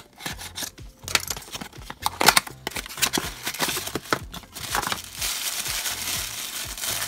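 A cardboard blind box slit with a small box cutter and its flaps pulled open: a click, then irregular sharp rustles and snaps. From about five seconds in, steady crinkling of tissue paper as the wrapped figure is pulled out.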